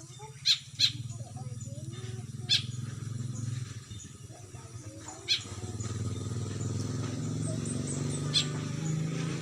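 A handful of short, sharp calls from a jalak (Asian starling) over a steady low engine hum, which grows louder about halfway through.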